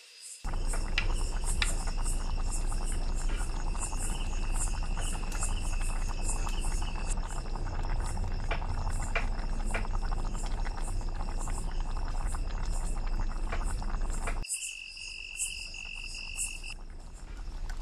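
A clay pot of rice and vegetables boiling hard on a wood fire, a loud dense crackling and bubbling. Crickets chirp steadily throughout. The cooking noise cuts off suddenly about 14 seconds in, leaving the crickets.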